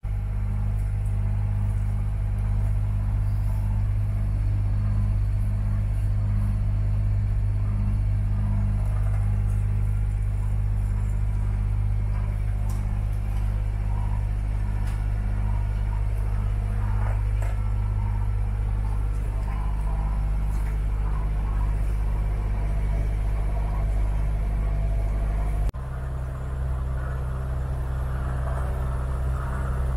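Engine running at a steady speed with a loud, low drone. About 26 s in it cuts abruptly to a slightly quieter engine drone at a different pitch.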